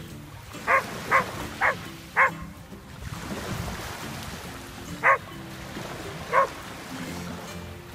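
A dog barking: four sharp barks in quick succession, then two more spaced a second or so apart.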